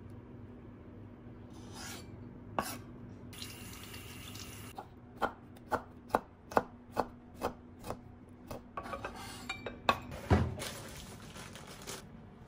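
Kitchen knife chopping on a wooden cutting board: a run of sharp, evenly spaced knocks about two a second, quickening near the end and finishing with a heavier thud. Softer scraping of the blade on the board comes before them.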